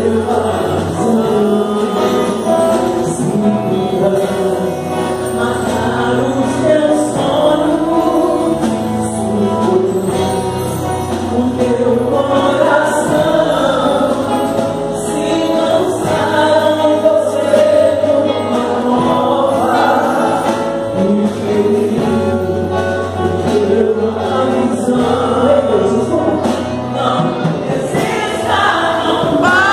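Live gospel worship song played through a PA: a woman singing lead with backing singers, over a band of electric guitar, congas and drum kit keeping a steady beat.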